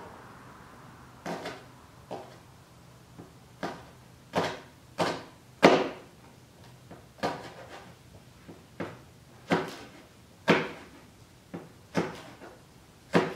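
Kitchen knife chopping green onion on a cutting board: a string of separate sharp knocks of the blade hitting the board, irregularly spaced at about one or two a second.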